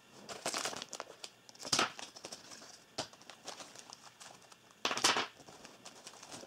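Small clear plastic packaging bags crinkling and a cloth drawstring pouch rustling as mic accessories are handled and pulled out. The sound comes in uneven bursts with light clicks, the loudest about half a second in, near 2 s and near 5 s, with a sharp click about 3 s in.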